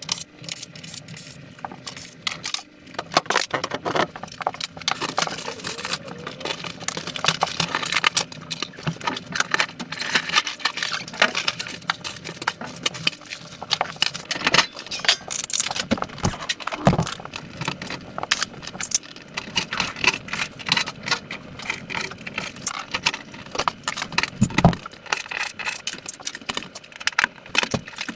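Tools and metal parts of a washing machine clinking and rattling as it is dismantled: a continuous run of sharp clicks and jangles, with a few heavier knocks.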